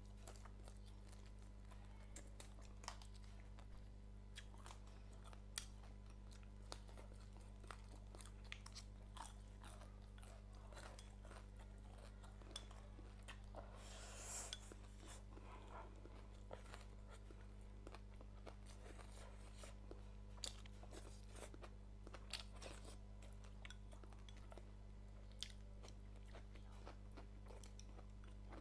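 A person eating a home-cooked meal close to the microphone: soft chewing and crunching, with short sharp clicks scattered irregularly throughout and a denser crunchy stretch about halfway. A steady low hum runs underneath.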